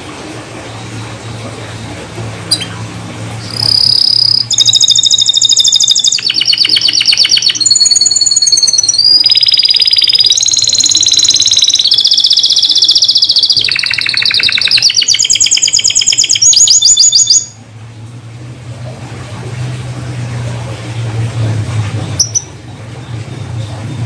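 A white domestic canary sings one long song of about fourteen seconds. It moves through a series of rapid, high-pitched trills, each phrase changing to a new note or pattern, and cuts off abruptly. A low steady hum runs underneath.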